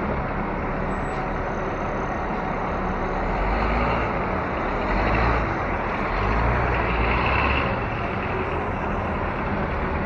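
City street traffic noise heard while riding along an avenue, with a heavier vehicle's low rumble swelling between about four and eight seconds in.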